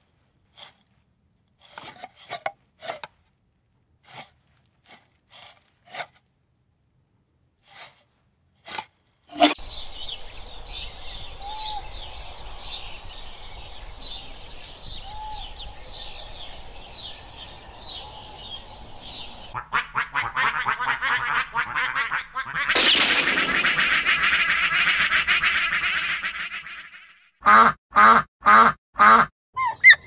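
A run of animal and bird calls: scattered short calls at first, then a long stretch of rapid high repeated chirping notes, a louder noisy stretch, and five short evenly spaced calls near the end.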